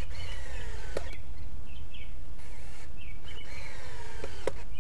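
Power drill driving two wood screws into treated lumber, the motor's pitch falling as each screw bites in. Each one ends in a sharp click, the first about a second in and the second near the end.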